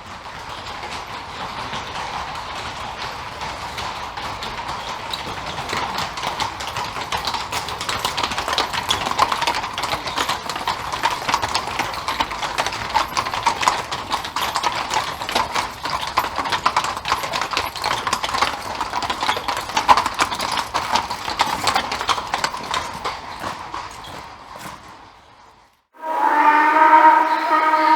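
Horse-drawn cart: hooves clip-clopping with the cart rattling along, getting louder, then fading away over its last few seconds. About two seconds before the end, a different, steady pitched sound cuts in abruptly.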